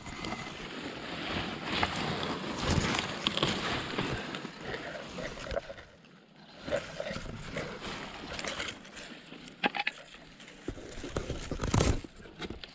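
Grass and burdock leaves rustling and crackling right against the microphone as a burdock flower stalk is handled among them, with a loud scuffing rustle near the end.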